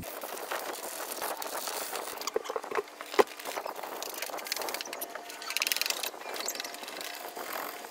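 Hand-sanding the centre hub of an old steering wheel to take off white gunk: irregular rasping scrubbing strokes with small clicks, and one sharp knock about three seconds in.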